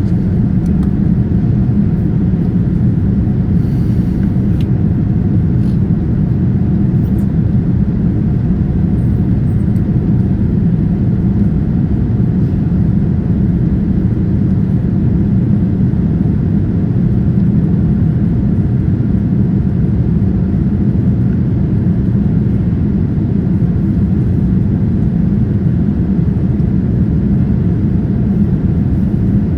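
Steady low rumble of engine and airflow noise inside the cabin of a Boeing 787-9 Dreamliner, unchanging in level.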